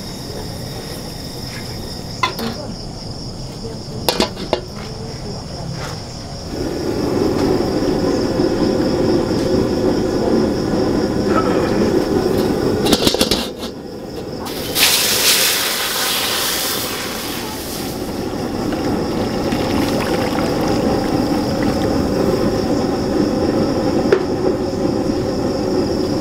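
Gas ring burner running with a steady rush that grows louder about six seconds in, with a few sharp metal clanks as a steel wok is set on the stove. About fifteen seconds in there is a two-second splash as water is poured into the wok.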